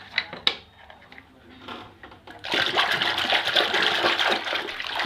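A few light clicks and knocks of hard plastic toys being handled. About halfway through, loud water splashing and sloshing starts as a toy is swished in a basin of water.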